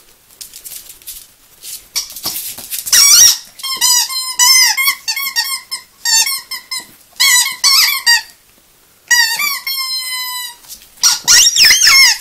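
Rubber squeaky dog toy squeaking repeatedly as two Yorkshire terriers bite and tug at it, in quick bursts of squeaks with a short pause just after the middle.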